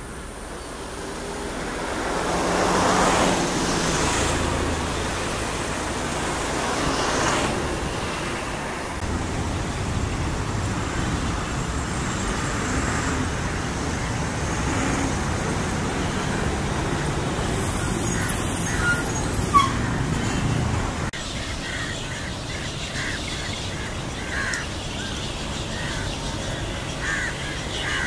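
Steady road traffic noise, with two vehicles passing close, each swelling and fading, in the first eight seconds. A single sharp tap comes about two-thirds of the way through.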